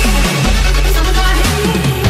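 Loud electronic dance music, dubstep-style, with a heavy sustained bass and falling bass sweeps.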